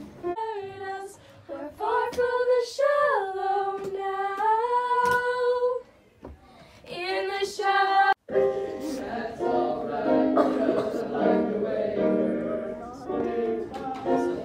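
School choir singing: held notes that slide up and down in pitch, a brief drop about six seconds in, then after a sudden cut, denser singing with several voices together.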